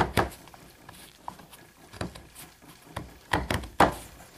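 Hoof knife slicing and scraping the bar of a horse's hoof: a few short, crisp cuts, with a quick cluster of them about three and a half seconds in.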